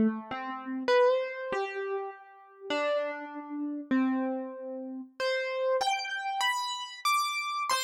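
Outro music: a slow melody of single synthesized electric-piano notes, each struck and left to ring out, a new note every half second to a second.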